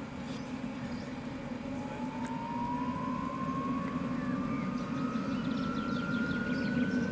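Jetcat PHT3 model helicopter turbine starting up: a thin whine that begins about two seconds in and climbs slowly in pitch as the turbine spools up, over a steady low hum.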